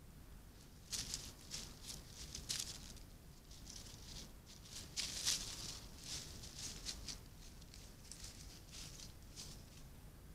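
Young red fox rustling and scratching about close to the microphone: faint, irregular short rustles and crackles, loudest about five seconds in.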